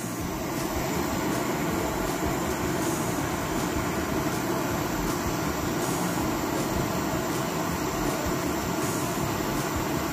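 Steady mechanical drone with a low hum, unchanging throughout.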